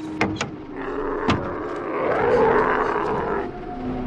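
Old motor car pulling up on dry dirt: a rush of noise that swells and fades, with a few sharp knocks near the start.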